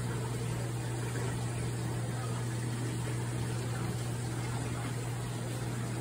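Aquarium pump and filter running: a steady low hum with a soft hiss over it.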